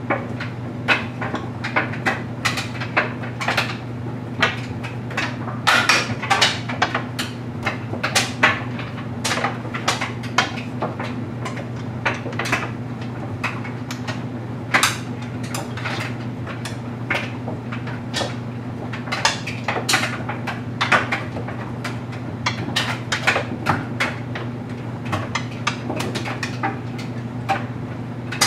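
LG Mega Capacity clothes dryer tumbling a load of stuffed animals: a steady low hum from the running dryer, with frequent, irregular knocks and clatters as the toys drop against the drum and door.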